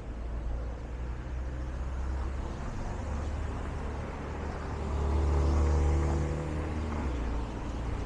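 Cars driving past close by on a narrow street: a low engine rumble that builds to its loudest a little past halfway, then eases off.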